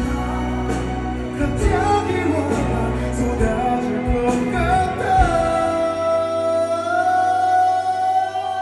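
Male singer and live band performing a pop ballad in concert. Drums hit hard through the first five seconds, then a single long note is held over the band, stepping slightly higher near the end.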